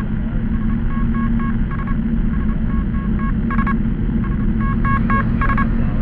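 Short electronic beeps in quick, irregular groups over a steady low hum, rumble and hiss, with a muffled, narrow sound as if heard over a radio.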